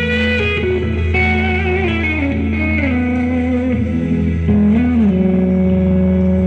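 Music played loud through a PA sound system during a sound check: a sustained melodic lead whose notes slide up and down over a steady low bass.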